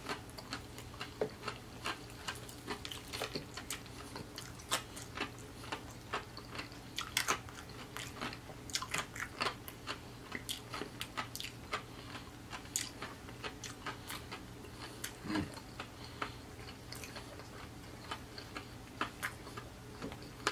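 Close-miked chewing of fried chicken: a run of short, irregular wet mouth clicks and smacks over a steady low hum.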